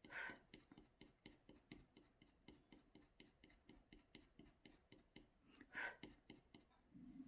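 Faint, quick scratching strokes of a tool cutting into an ink-coated scratchboard, about four light ticks a second. Two short puffs of breath come just after the start and about six seconds in, typical of blowing the scraped-off ink dust away.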